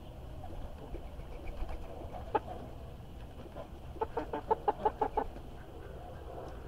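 Domestic fowl calling: a single short call, then a couple of seconds later a quick run of about eight short clucking calls lasting just over a second. A low steady rumble runs underneath.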